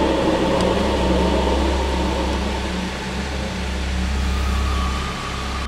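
Steady low hum of a pool circulation pump with water rushing through its pipes, an even hiss over a deep drone.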